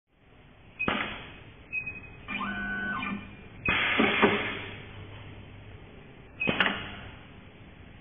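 Rotary knife cable stripping machine working a thick insulated cable: a series of sharp clunks and a short steady motor whir about two seconds in.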